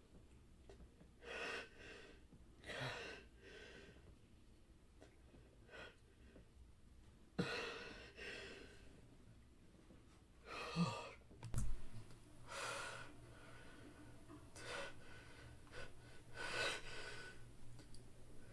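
A man's breathing as he fights off a sneeze: a string of separate breathy intakes and sighs, with two sharp, sudden bursts, held-back sneezes, about seven and a half and eleven and a half seconds in.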